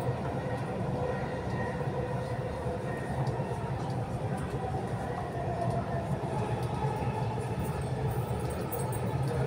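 Dubai Metro train running at speed, heard from inside the carriage: a steady low rumble with faint humming tones above it.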